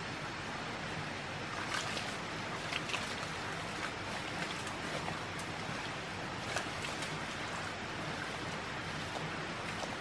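Steady rushing noise of flowing water, with a scattering of short sharp clicks over the first seven seconds.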